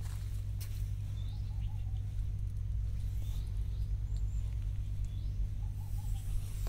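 Birds chirping in short rising calls, with a few quick runs of lower notes, over a steady low hum.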